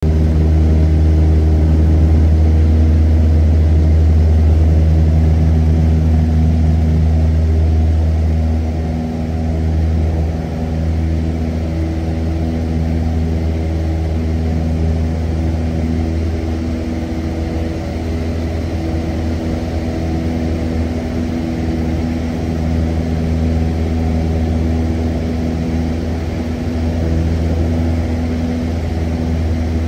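Cessna 172's piston engine and propeller at takeoff power, heard inside the cabin: a loud, steady drone through the takeoff roll and climb-out, a little louder for the first eight seconds or so.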